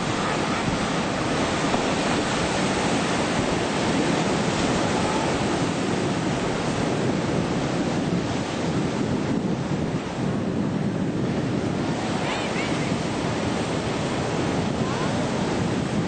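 Ocean surf breaking and washing in a steady rush, with wind buffeting the microphone.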